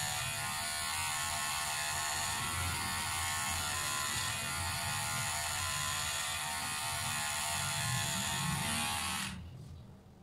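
Electric hair clipper running with a steady high buzz as it is run over the side of the head, switched off abruptly about nine seconds in.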